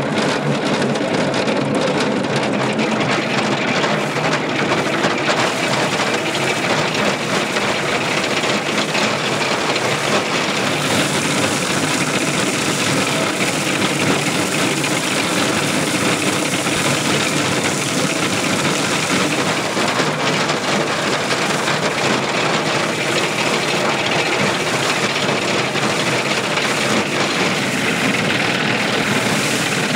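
Small threshing machine driven by an animal-powered gin, running steadily as wheat sheaves are fed into its drum to separate the grain from the ears: a dense, even mechanical noise that brightens a little about eleven seconds in.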